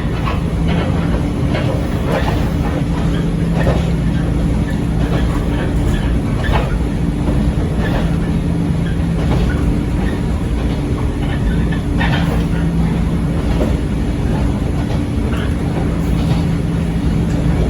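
Echizen Railway 5001-series electric railcar running at a steady speed: a steady hum and rumble, with wheels clicking now and then over rail joints.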